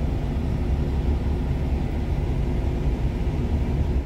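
Semi truck's diesel engine idling, heard from inside the cab as a steady low rumble.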